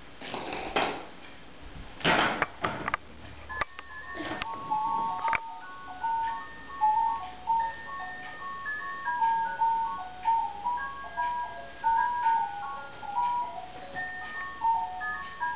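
Electronic baby toy playing a simple beeping melody of short single notes, starting about three or four seconds in. A few short loud noises come before it.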